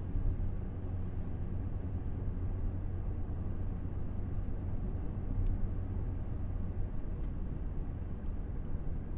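Steady low rumble of a moving vehicle: engine and road noise.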